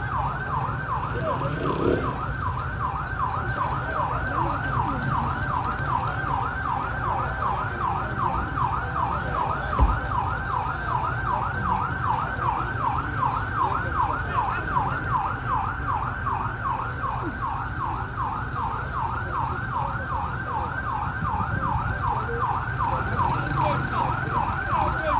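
Vehicle siren sounding a fast yelp, its pitch sweeping up and down about three times a second without a break, over a steady low rumble of vehicle and road noise.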